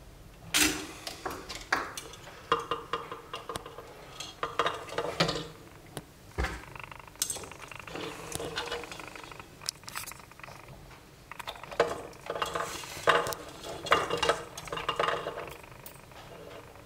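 Irregular small clicks, taps and rustles as a cylindrical capacitor and its wire leads are handled and fitted against a speaker crossover circuit board.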